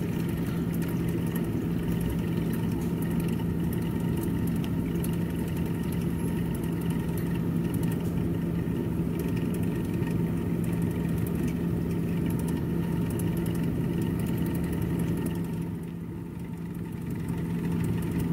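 Steady droning hum of an appliance motor running, with one low pitch and fainter overtones above it. It eases off briefly a few seconds before the end.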